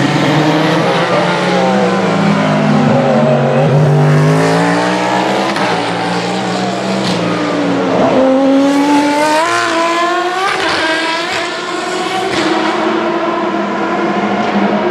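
Hypercar-class endurance prototype race car engine at high revs. Its pitch falls over the first few seconds, then from about 8 s in it climbs in a series of quick steps as the car accelerates up through the gears.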